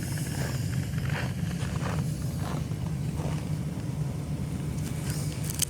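Steady low rumble of a pickup truck idling, heard from inside the cab, with a sharp click near the end.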